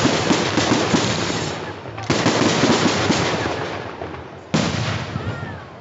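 Aerial fireworks shells bursting, each burst followed by a dense, rapid crackling that fades away. Fresh bursts come suddenly about two seconds in and again about four and a half seconds in.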